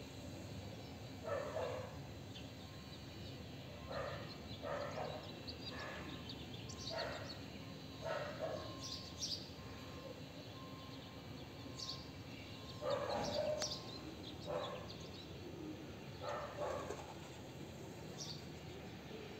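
An animal's short calls, repeated at irregular gaps of one to a few seconds, with faint high bird chirps in between.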